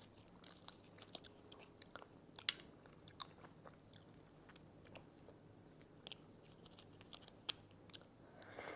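Close-up eating of steamed mud crab: chewing and sucking meat and roe from the shell, with small sharp clicks and crunches of crab shell as it is picked at with a small metal fork. The sharpest click comes about two and a half seconds in.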